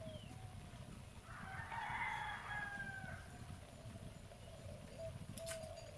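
A rooster crowing once, starting about a second in and lasting about a second and a half. Short calls repeat faintly around it, and a sharp click comes near the end.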